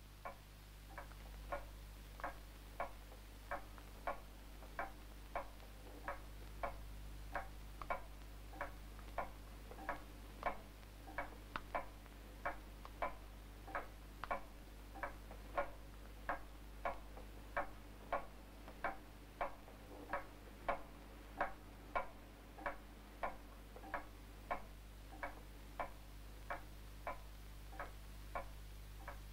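Steady clock-like ticking, about three ticks every two seconds, over a low steady hum.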